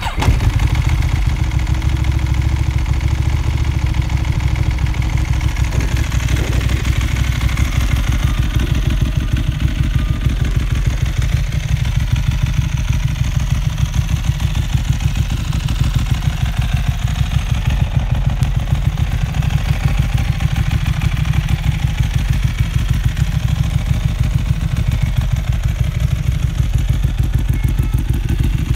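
2010 Ducati Streetfighter 1098 S's 1,099 cc L-twin engine idling steadily through a Termignoni exhaust, with an even, rapid pulse.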